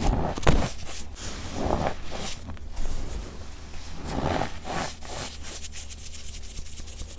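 Packed baking soda squeezed and crumbled by hand, giving gritty crunches and squeaks in several separate squeezes, then a fast run of fine crackles near the end.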